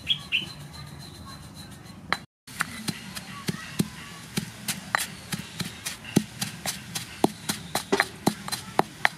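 Stone pestle pounding coarse salt and tiny dried shrimp in a stone mortar: a steady run of sharp knocks, about three or four a second, broken by a short silent gap about two seconds in.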